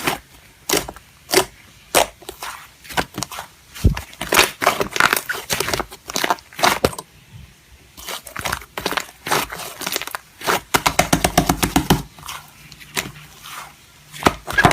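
Slime being pressed and worked by hand, giving irregular crackling pops and clicks, with a quick run of pops about eleven seconds in.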